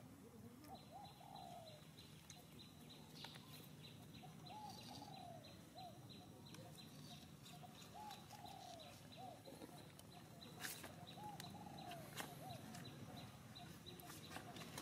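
Faint dove cooing: a short phrase of several soft coos, repeated about every three to four seconds, over a faint steady high-pitched tone.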